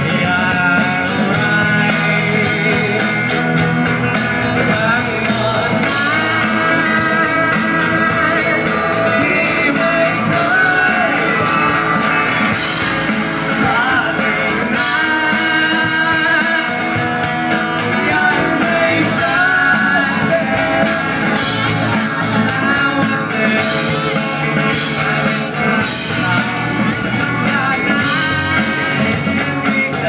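Live rock band playing a song: a male voice singing over electric guitars, keyboard and drums.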